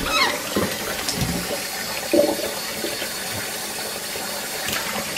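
Kitchen tap running steadily into a stainless steel sink, the stream splashing on the water and the monkey in the basin.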